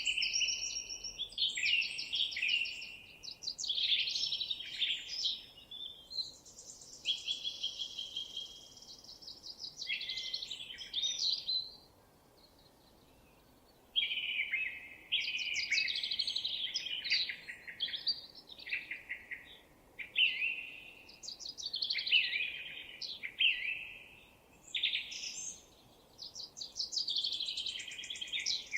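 Songbirds singing: a string of fast, varied song phrases full of rapid trills, with a pause of about two seconds near the middle.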